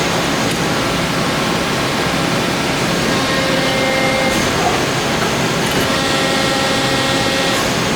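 Accurpress hydraulic CNC press brake running: a steady mechanical whir and hiss, with faint steady tones that come in twice, a few seconds in and again near the end.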